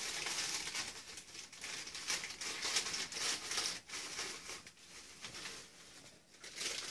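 Clear plastic bag crinkling and rustling in the hands as it is worked open. It goes quieter in the second half.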